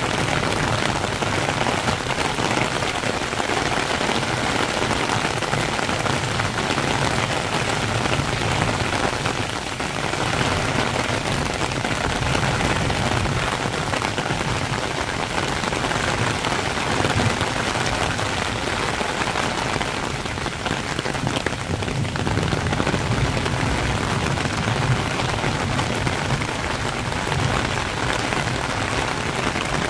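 Heavy rain shower falling steadily on a paved path and dense foliage: an even, unbroken hiss of countless drops.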